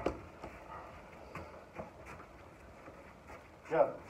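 Boxers' footwork on artificial turf between focus-mitt combinations: a few faint scuffs and light taps, with a short vocal sound near the end.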